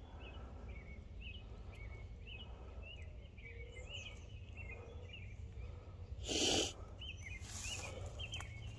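Several birds chirping in short, quick calls over a low background rumble. About six and a half seconds in, a person sneezes, then sniffs, a sign of hay-fever allergies.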